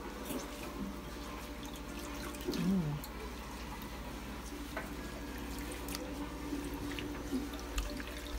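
Water sloshing and dripping as a wet cloth bundle is squeezed and kneaded by hand in a bowl of purple-tinted rice water, with small scattered splashes and drips.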